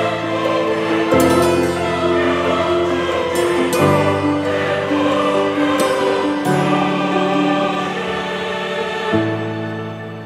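Background music: a choir-like ensemble holding sustained chords that change about every two and a half seconds.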